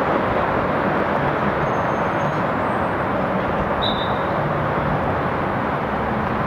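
Steady hum of city traffic, with a short high chirp about four seconds in.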